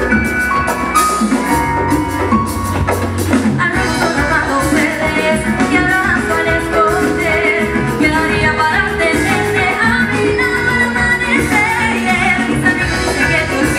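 Live Latin pop band playing, with drum kit and hand percussion; a woman's lead vocal comes in about four seconds in.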